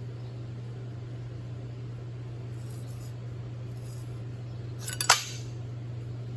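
Steady low hum with a single sharp metallic clink about five seconds in, just after two faint ticks.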